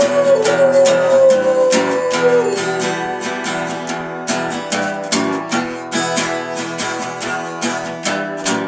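Acoustic guitar strummed in a steady rhythm, with a held sung note over the strumming that trails off about two and a half seconds in.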